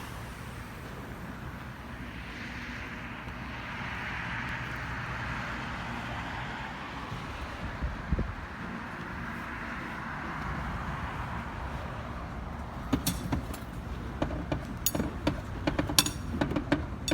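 A steady rushing noise that swells and fades, with a low rumble under it, then, from about three-quarters of the way through, a run of sharp clinks and knocks.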